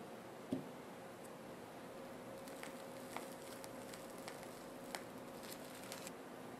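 Faint small clicks and light taps over a steady hiss, with one soft knock about half a second in and a scattered run of tiny clicks from about two and a half seconds to six seconds.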